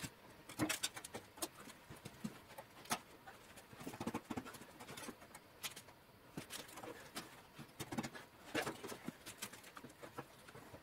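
Scattered light knocks, clicks and short scrapes of metal parts being handled and fitted at the front of a mower, irregular, with no engine running.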